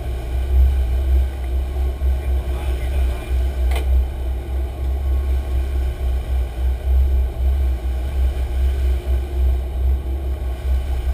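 A sportfishing boat under way, giving a steady deep rumble of its engines and the running hull. There is a single sharp click about four seconds in.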